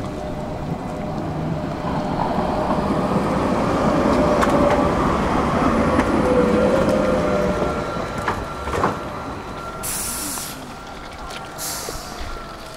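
A Gothenburg tram running on its rails, with a steady whine in its sound. It grows louder toward the middle and then fades. Two short hisses come near the end.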